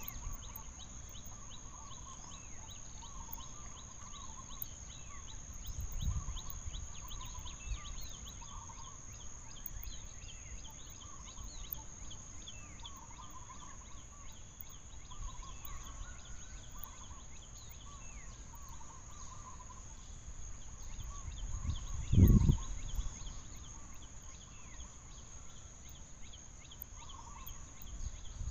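Forest ambience: a steady high-pitched insect drone with frequent short chirping calls, and a low thump about 22 seconds in.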